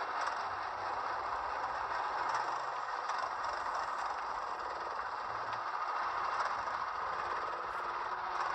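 Go-kart driven on track, heard from onboard camera footage played back through a screen's speaker: a steady rattling, rushing noise from the moving kart, with no clear engine note.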